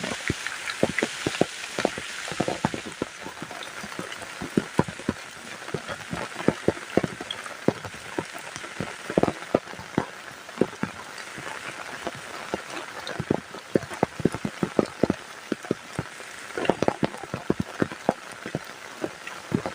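Heavy rain: a steady hiss of rainfall with many loud, irregular drops striking a surface close by.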